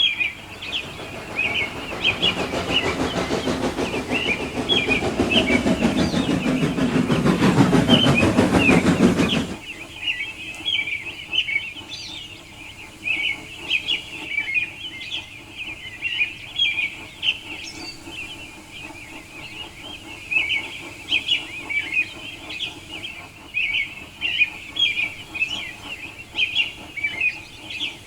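A steam locomotive running, growing steadily louder for about nine seconds and then cutting off abruptly, with birds chirping throughout.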